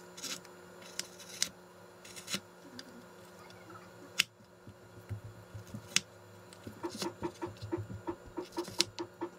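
Knife slicing fish cakes on a bamboo cutting board: scattered knocks of the blade hitting the board, then a quick run of chopping knocks, about four a second, near the end.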